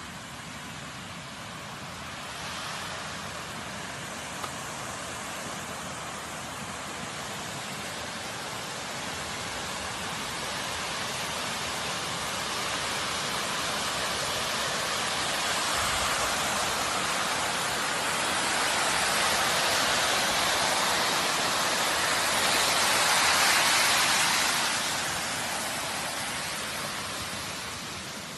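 Flash-flood water rushing over the ground: a steady rush that grows louder through the middle, peaks about four-fifths of the way in, then eases.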